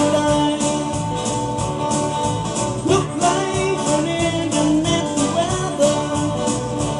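Band playing a country-style song: guitar over a steady drum beat, with singing.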